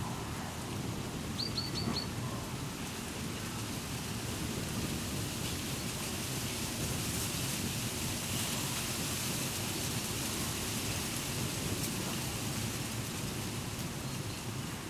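Wind moving through the leaves of a treetop, a steady rustling wash that swells around the middle. Four quick high chirps sound about a second and a half in.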